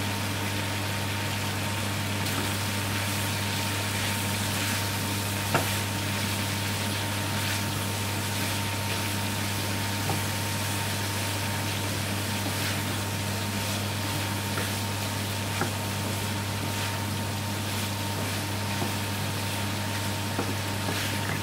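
Wooden spoon stirring chickpeas and vegetables in a steel frying pan, with a few light knocks of the spoon against the pan every few seconds. Underneath is a steady low hum and hiss.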